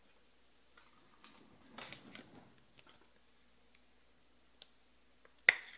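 Trading cards being handled on a table: a soft rustle about two seconds in, a few faint ticks, then one sharp tap near the end.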